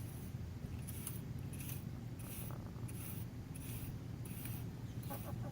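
A chicken's wheezing breaths: short raspy hisses about every two-thirds of a second, the sign of a respiratory illness. A steady low hum runs beneath.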